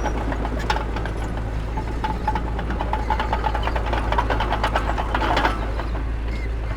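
Heavy diesel earth-moving machinery running: a steady low drone with frequent clanks and rattles, louder for a moment about five seconds in.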